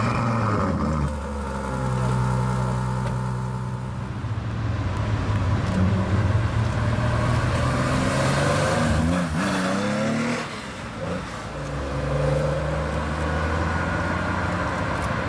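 Ferrari F12tdf's V12 engine idling steadily just after being started. About nine seconds in, its pitch briefly rises and falls in a short rev, then it settles into a steady engine note again as the car pulls away.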